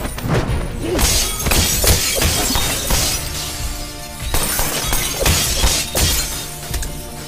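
Glass window panes shattering in repeated crashes over dramatic film music, with a few sharp hits near the start.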